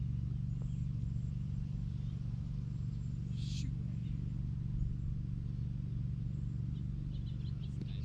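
Steady low outdoor rumble, with faint high bird chirps and a brief hiss about three and a half seconds in.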